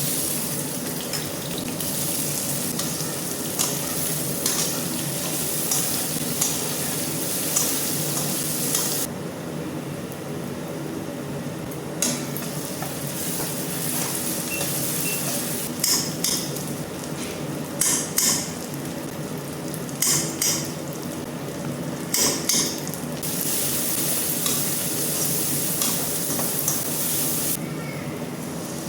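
Chicken curry sizzling as it fries in a metal kadhai, stirred with a spoon. A run of sharp metal clinks and scrapes against the pan comes in the middle, over a steady low hum.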